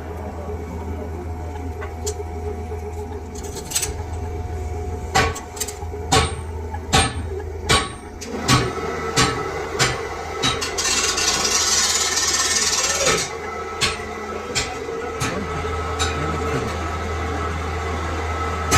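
Workshop machinery humming steadily, with a series of sharp metal knocks about one a second starting about five seconds in, and a hiss lasting a couple of seconds in the middle.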